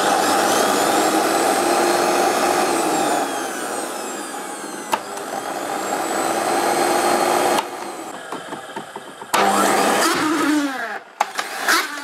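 Electrolux vacuum cleaner motor running with its cover off: a loud rush of air with whining tones that slide down and up, dropping away about seven and a half seconds in, then coming back briefly and winding down. The screaming comes from a failed motor bushing that lets the fan rub against the casing.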